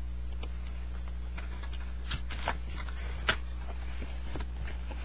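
Scattered crackles and sharp clicks of a trading-card hobby box being opened and its packs handled, the sharpest about two and three seconds in, over a steady low electrical hum.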